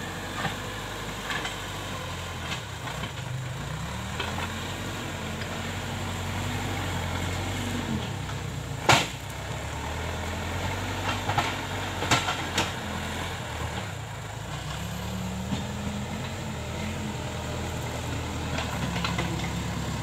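Case 580K backhoe loader's four-cylinder diesel engine working under load while the front bucket pushes soil; its pitch rises and falls twice. A sharp knock about nine seconds in is the loudest sound, with a few smaller knocks a few seconds later.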